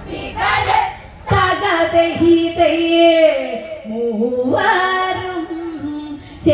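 Women singing a Malayalam Onamkali folk song (a therali pattu), with long held notes and a sliding note about four seconds in. A short sharp tap sounds just under a second in.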